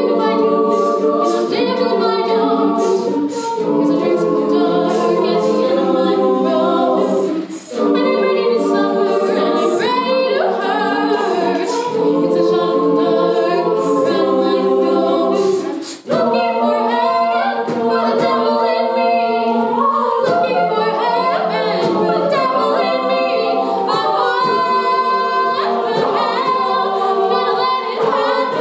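All-female (SSAA) a cappella group singing in close harmony, with a solo voice over the group's sustained chords and beatboxed percussion underneath. The singing breaks off briefly about eight seconds in and again near sixteen seconds.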